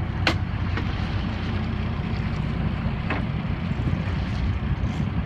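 Boat engine running steadily under heavy wind on the microphone and water noise, with two short sharp knocks, one just after the start and one about three seconds in.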